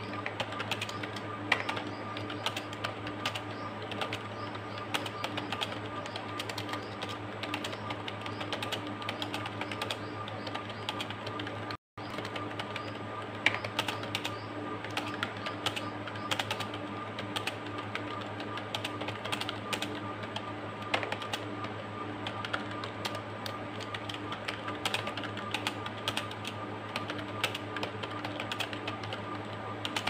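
Fast, continuous typing on a computer keyboard, an uneven stream of keystroke clicks at several a second. A steady hum runs underneath, and the sound cuts out for an instant about twelve seconds in.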